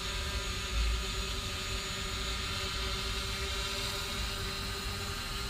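Steady outdoor background hum with a faint, even tone through it, and a brief low rumble a little under a second in.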